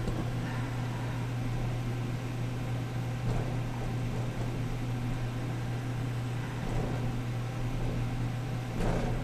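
Steady low hum of a human centrifuge flight trainer running, heard from inside its gondola through the cockpit microphone.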